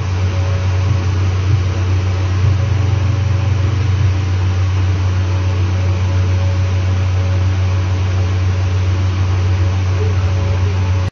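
Steady low machine hum with an even hiss, unchanging throughout, cutting off suddenly at the end.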